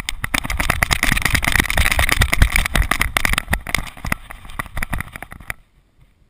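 Rapid irregular knocking and rumbling from a GoPro camera harnessed to a running Border Terrier, jolted by the dog's strides and buffeted by wind. It stops abruptly about five and a half seconds in.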